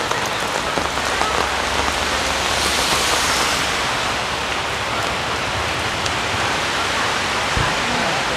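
Steady rain falling, an even hiss that swells briefly in its higher part about three seconds in.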